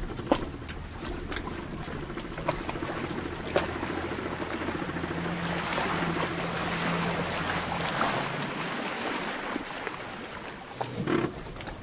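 Small outboard motor running at a steady pitch as the boat moves across the water, with water splashing at the hull and wind buffeting the microphone. A few sharp knocks come in the first few seconds, and the motor's hum fades about nine seconds in.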